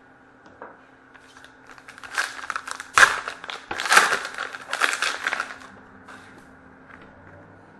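Plastic card-pack wrapper crinkling as it is torn open and crumpled, a burst of crackles lasting a few seconds with the sharpest crackles in the middle.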